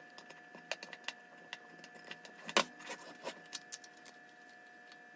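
Light clicks and taps of 3D-printed plastic parts and cord being handled, with one louder knock about two and a half seconds in. A faint steady hum sits underneath.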